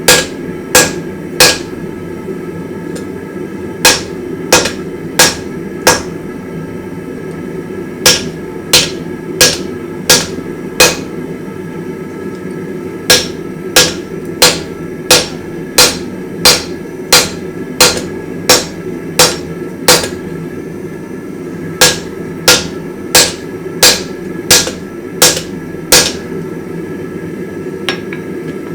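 Hand hammer striking a hot damascus steel billet on the anvil to draw it out longer. The blows come in runs of about one and a half a second, with short pauses between runs, over a steady low rumble.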